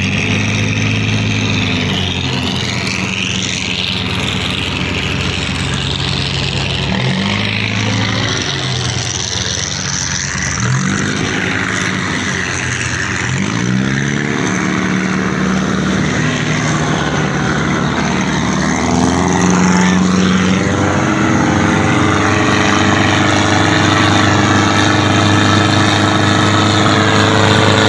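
Pompong wooden motorboat engines running under way at racing speed, with rushing water from the hull. The engine pitch dips and rises several times in the first half, and about twenty seconds in a second engine alongside joins and the sound grows louder.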